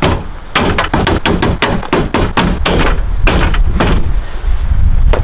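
Rapid, irregular hammer blows on the crumpled sheet metal of a Nissan 240SX's front end, about two to four bangs a second, over a steady low rumble of wind on the microphone.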